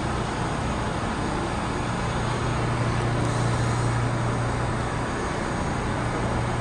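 New York City subway train standing at the platform with its doors open, giving a steady low hum over a constant wash of noise, with a faint short hiss about halfway through.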